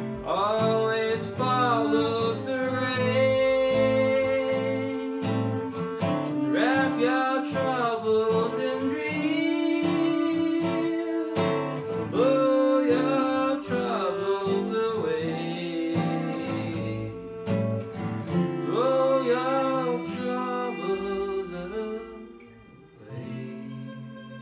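Acoustic jazz standard: a bowed string melody with gliding notes and vibrato over plucked acoustic guitar chords. The music dies away near the end.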